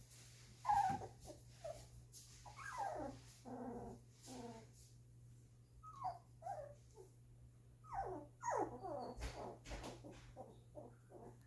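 Two-week-old golden retriever puppies whining: a string of short cries that slide down in pitch, coming in little groups, the loudest about a second in, over a steady low hum.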